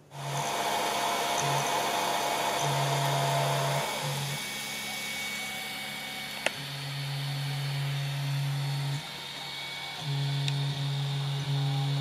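3D printer running a print: its stepper motors hum in low tones that start, stop and change as the head and bed move, over a steady whir of cooling fans. A single sharp click about six and a half seconds in.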